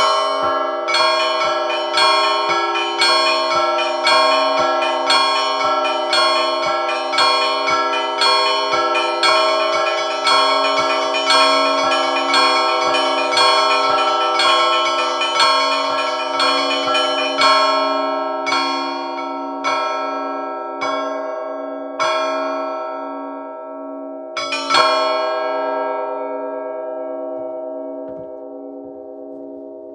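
Russian Orthodox church bells rung by hand in the Russian zvon style: rapid strikes on several smaller bells over the steady low hum of a larger bell. The strikes thin out about halfway through, a last double strike comes near the end, and then the bells ring on and fade as the peal closes.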